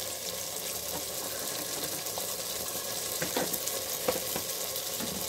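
Ground onion-cashew masala paste sizzling steadily in hot oil in a kadhai, with a few short scrapes of a spatula against the pan around the middle.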